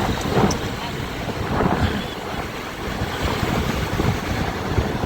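Wind buffeting the microphone on a moving ride, over the engine and road noise of traffic.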